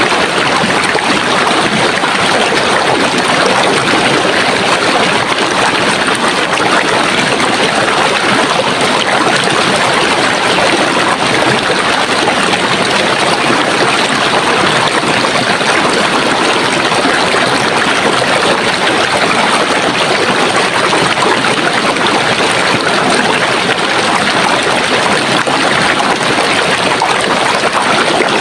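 Running water from a stream, a steady even rush.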